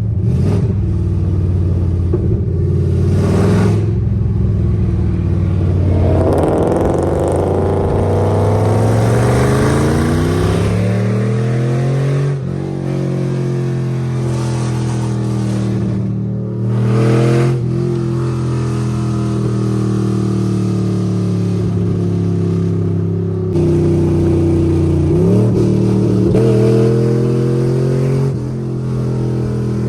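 Camaro SS 6.2-litre V8 with long-tube headers and an unfinished exhaust, running loud under way. It accelerates with the engine pitch climbing for several seconds, drops revs at a shift, then holds steady revs, with another brief rise in revs near the end.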